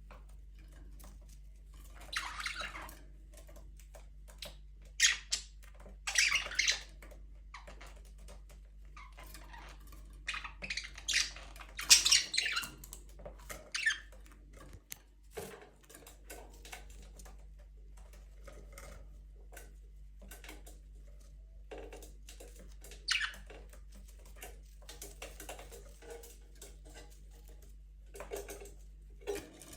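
Budgerigars chirping and chattering in short bursts a few seconds apart, with small clicks between, over a steady low hum.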